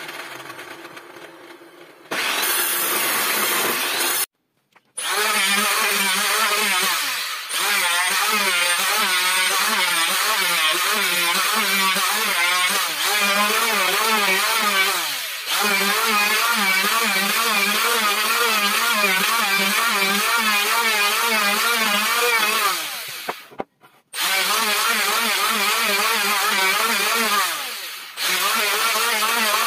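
Electric hand planer running and cutting along a wooden board, its motor pitch wavering as the blade bites. It runs in several passes, with short drops and breaks between them.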